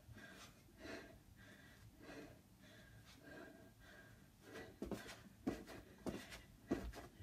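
A woman breathing hard in slow, faint breaths while holding a plank. About four and a half seconds in, her sneakered feet start thudding on a rug-covered floor in a steady beat, a little under two a second, as she drives her knees in the climber move.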